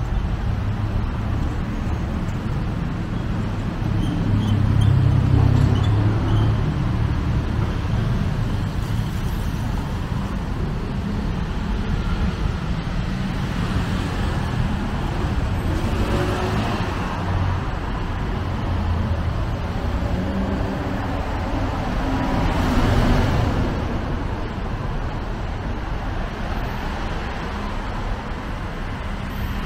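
Steady road traffic on a busy multi-lane street, cars and motorbikes going by, with louder swells of a passing vehicle about five seconds in and again past the twenty-second mark.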